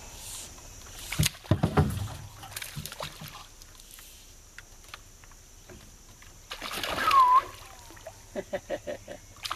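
Water splashing at the river surface in a few sudden bursts, with a sharp knock about a second in and a longer splash near the end.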